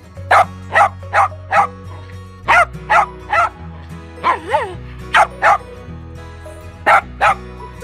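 Small dog barking in quick runs of two to four sharp barks, about two or three a second, with one drawn-out rising and falling yelp about halfway through. Background music plays underneath.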